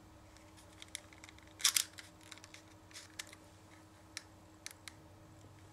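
Faint small clicks and taps of fingers handling a smartphone clamped in a plastic phone holder, feeling for the phone's side power button, with a louder cluster of clicks about one and a half seconds in. A faint steady hum runs underneath.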